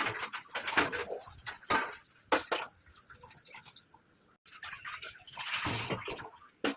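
Water splashing and running in uneven bursts, with a short break about four seconds in.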